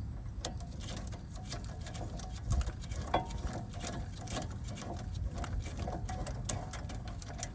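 Harbor Freight Pittsburgh palm ratchet clicking rapidly as it is spun, a fast, slightly uneven run of pawl clicks with a couple of louder knocks about three seconds in.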